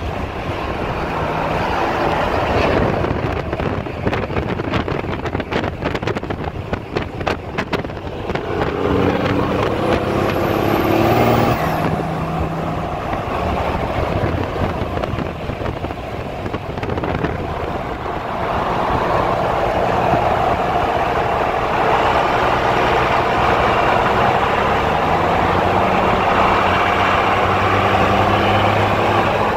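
Diesel pickup truck running down the road at speed, its engine note steady over road and wind noise. The engine note climbs about two-thirds of the way through as the truck accelerates.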